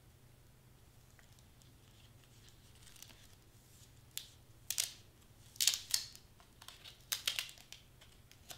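Stiff clear acetate sheet crinkling and crackling under the hands as it is pressed and smoothed down onto the taped foam letter. A string of short crackles starts about three seconds in.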